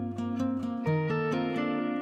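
Background instrumental music: a light plucked-string tune of quick, even notes over a held bass note that changes about a second in.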